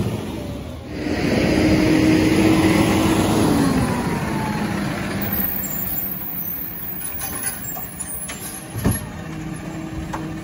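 Garbage truck's diesel engine running at raised revs with a hiss, the pitch dropping about three and a half seconds in as it settles to a lower steady run. A single sharp knock comes near the end.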